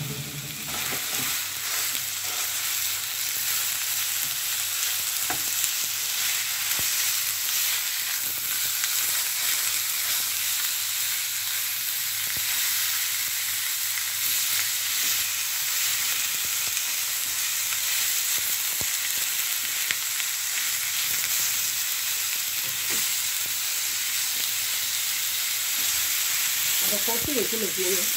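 Minced beef sizzling in oil in a nonstick frying pan: a steady, even hiss, with a spatula stirring and breaking up the meat.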